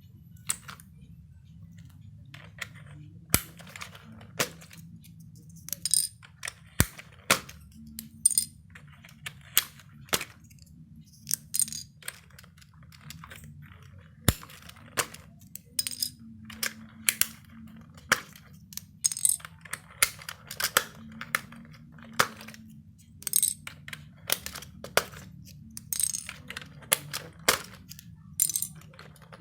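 Hard plastic clicks and clacks at irregular intervals, one to three a second, some with a brief bright ring, from the keys and keycaps of a Logitech PS/2 keyboard being handled while it is taken apart for cleaning. A low steady hum runs underneath.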